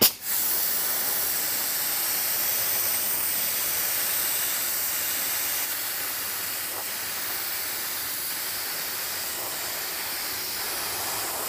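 LVLP spray gun spraying 2K urethane primer: a steady hiss of compressed air and atomised primer that starts suddenly and runs on, a little quieter after about six seconds.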